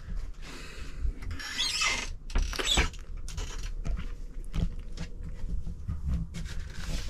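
Rustling and light knocks of a handheld camera being moved about in a small room, with a couple of short breathy hisses about two seconds and three seconds in.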